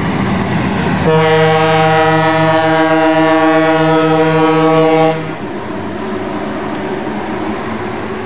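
Locomotive air horn sounding one long multi-note chord for about four seconds, starting about a second in and cutting off sharply, over the steady low rumble of a running locomotive.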